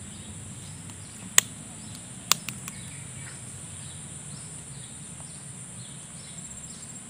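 Steady high-pitched drone of insects in the plantation, with two sharp clicks about one and a half and two and a half seconds in.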